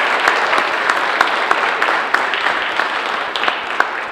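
Audience applause, many people clapping together in a dense patter that thins and fades over the last couple of seconds.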